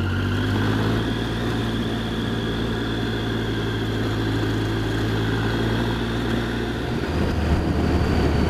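Triumph Street Triple 675's three-cylinder engine running at steady cruising revs in sixth gear, heard from the rider's helmet camera. The engine note shifts lower about seven seconds in.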